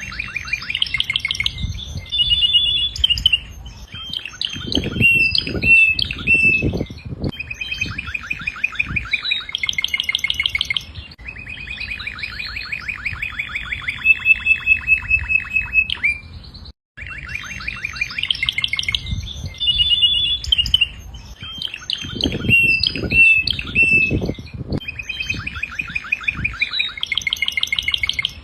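Domestic canary singing a long, continuous song of rapid trills and rolling phrases, with a brief dropout about two-thirds of the way through, after which the same song repeats.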